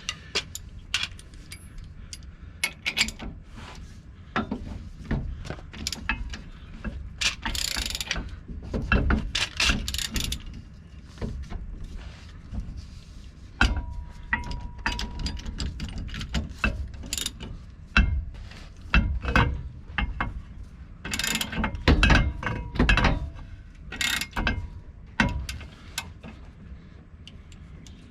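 Ratchet clicking in irregular runs as it turns the screw of a C-frame U-joint press, forcing a universal-joint bearing cap out of the front axle yoke, with some metal clatter between strokes.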